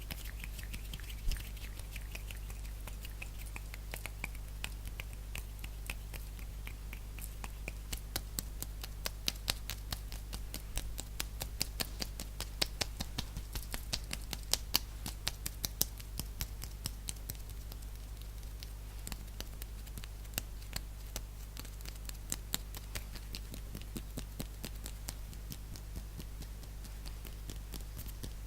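Fast hand sounds: a quick run of taps from hands and fingers, thickest and loudest around the middle, over a steady low hum.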